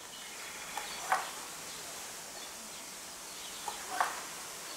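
A bird calling twice, about three seconds apart, each call a faint short note followed by a louder one, over a steady outdoor background hiss.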